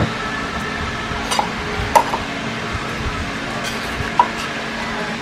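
A few light clinks of metal kitchen utensils and dishes, the sharpest about two seconds in, over a steady low background hum.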